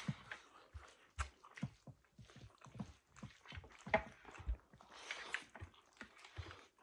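Close-up eating sounds: chewing and wet mouth smacks, many short irregular clicks with soft low thumps, loudest about four seconds in.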